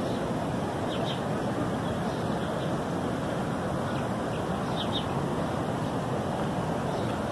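Steady rushing outdoor ambience at a riverbank, with a few short, faint, high bird chirps scattered through it.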